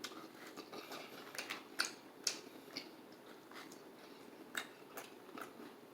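A person chewing a mouthful of soft mac and cheese, with scattered soft wet mouth clicks and smacks.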